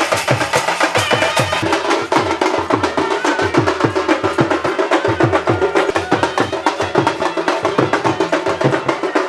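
Music with fast, busy drumming and a melody over it.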